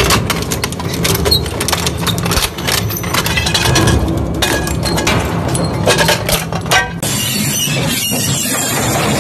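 Twin-shaft shredder's toothed cutter discs grinding a cast-metal gearbox housing apart: a low machine rumble under many sharp cracks and metal clanks as the casting breaks up. About seven seconds in, the sound changes suddenly to a steadier rushing noise.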